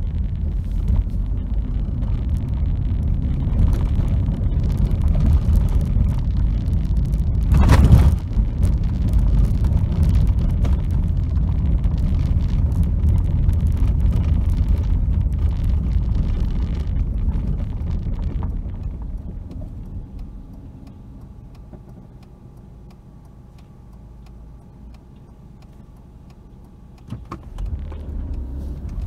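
Cabin noise in a 2002 Fiat Punto 1.2 8-valve driving on snow and ice on studded winter tyres: a low engine and tyre rumble, with one sharp thump about a quarter of the way in. About two-thirds through the rumble dies away to a quiet hum as the car slows, and after a click near the end it picks up again.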